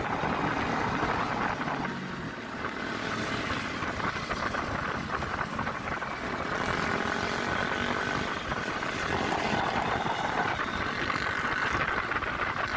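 Motorcycle underway, its engine running steadily.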